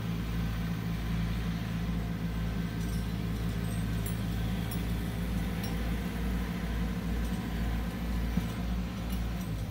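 Tractor engine running steadily at a constant speed, with faint light metallic ticks and rattles from about three seconds in.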